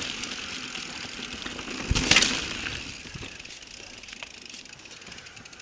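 Norco Range mountain bike rolling down a dirt trail: tyre noise on dirt with bike rattle and wind on the camera mic. There is one louder jolt with a burst of rattle about two seconds in, and the sound gets quieter near the end.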